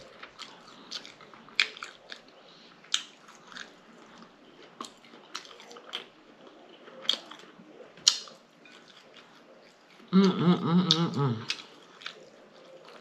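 Close-miked eating of fried pork chop: chewing and biting, with sharp crunches and wet lip-smacking clicks at irregular intervals. A short hummed or voiced sound comes about ten seconds in.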